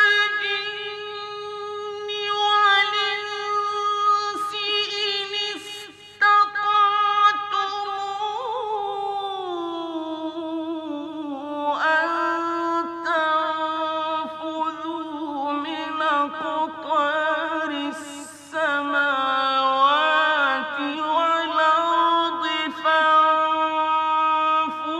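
A man's voice reciting the Quran in the melodic mujawwad (tajweed) style: long held, ornamented notes that glide between pitches, with short breaks near 6 and 18 seconds in.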